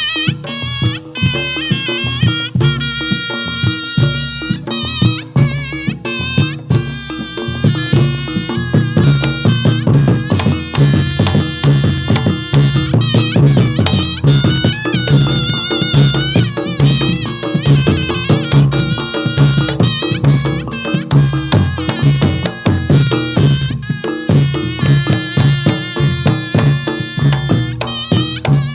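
Reog Ponorogo ensemble music accompanying a Jathilan dance: a slompret shawm plays a shrill, wavering melody over continuous kendang drumming and percussion.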